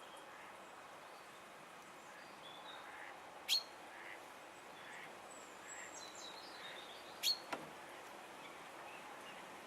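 Faint small bird calls and chirps over a steady background hiss, broken twice by a short, sharp click, once about a third of the way in and again about three-quarters through.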